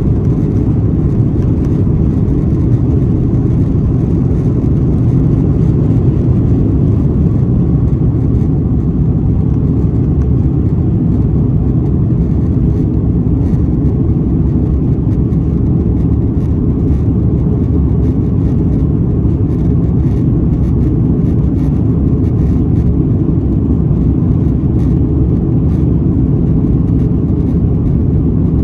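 Steady low rumble of an Airbus A330's jet engines and airflow heard from inside the passenger cabin, holding an even level without rising or falling.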